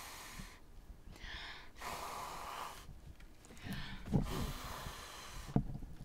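Several long, breathy puffs of air as a person blows on wet pour paint to push it across the canvas, with a soft knock about four seconds in.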